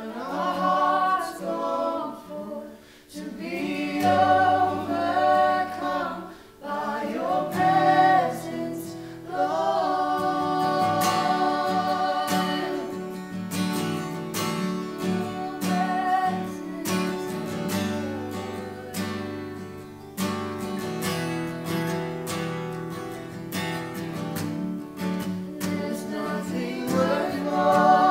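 Acoustic worship song: several voices singing together over strummed acoustic guitar, the singing strongest in the first half and swelling again near the end.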